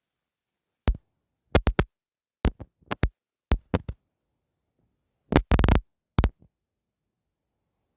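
A string of short, sharp knocks in irregular clusters, with dead silence between them.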